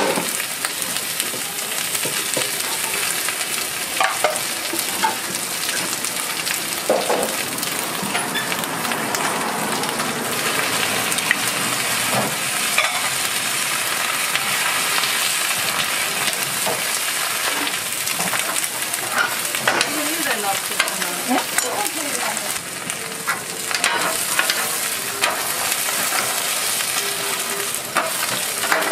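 Batter and green onions for a Korean green onion pancake (pajeon) sizzling steadily on a hot flat-top griddle, with scattered short clicks and scrapes of a metal spatula and knife working the toppings.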